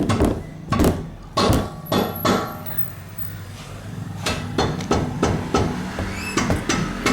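A metal tool rapping on a Volkswagen Fox's front suspension parts and brake caliper: a run of sharp knocks, a pause around the middle, then another quicker run. It is a tap test for loose parts, with a slight play typical of these calipers.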